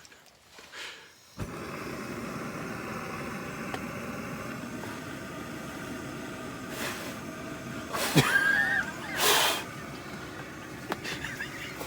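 Camp stove gas burner catching about a second and a half in with a sudden onset, then a steady hiss of burning gas. A few louder short sounds come over it near the middle.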